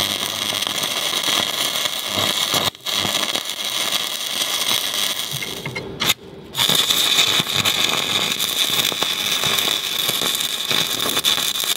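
Stick welder's arc crackling and sizzling steadily while welding an anode strap onto a steel boat keel. The arc breaks off briefly about three seconds in, and again for about half a second a little past six seconds, before it is struck again.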